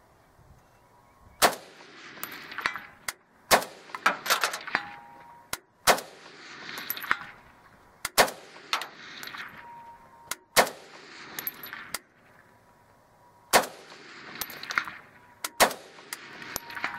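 AK-47 rifle (7.62×39 mm) fired as single shots at an uneven pace, roughly one every one to three seconds. Each sharp crack is followed by a rolling echo that fades out.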